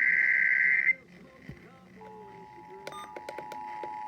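Emergency Alert System broadcast over FM radio. A loud two-pitch digital data burst (the SAME header) cuts off about a second in. After a short quieter gap, the steady two-tone attention signal starts about two seconds in, with sharp clicks of static over it.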